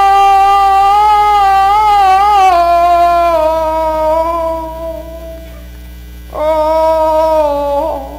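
Male Cantonese opera singer holding a long, drawn-out sung note with a wavering vibrato that slides down and fades about three seconds in, then another held phrase starting about six seconds in that falls away. A steady electrical mains hum sits underneath.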